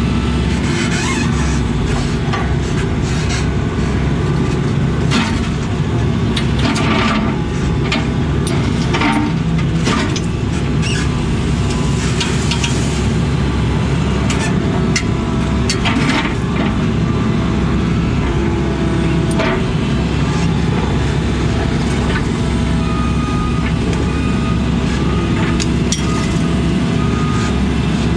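Heavy diesel engine running steadily under load, with scattered sharp metallic knocks and clanks.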